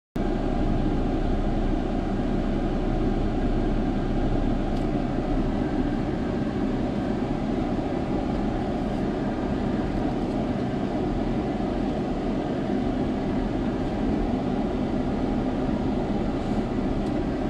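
Jeep Gladiator's engine running steadily as the truck drives the trail, a low, even rumble.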